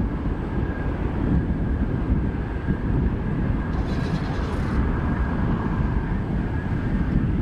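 Jet airliner engines, a steady low roar with a faint high whine.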